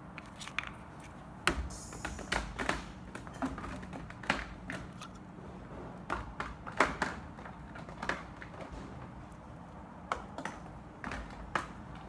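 Small hard objects being rummaged through and moved about by hand: a string of irregular clicks and knocks, about a dozen, unevenly spaced.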